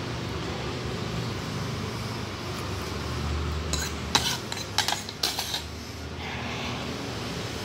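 Metal fork and spoon clinking against a ceramic bowl, a quick cluster of sharp clinks a little past halfway through as the utensils are set down in the bowl.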